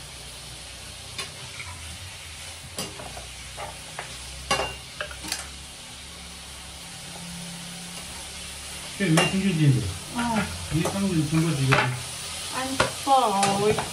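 Food sizzling as it fries in a pan, with a cooking utensil clicking and scraping against the pan as it is stirred. In the second half a person's voice comes in over the frying.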